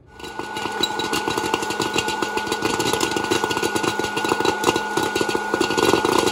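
Hot-air popcorn popper running: the steady whine of its fan motor, with a dense, rapid clicking of kernels in the chamber.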